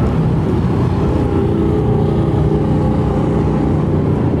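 Motorcycle engines running in a steady, loud, low rumble as a stream of bikes rides past.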